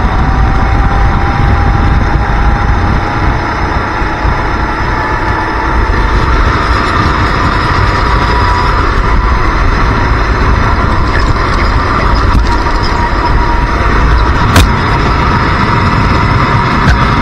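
Racing kart engine running hard, its pitch rising slowly as the kart gathers speed and then holding steady, over heavy wind rumble on the onboard camera microphone. A single sharp knock comes about three-quarters of the way through.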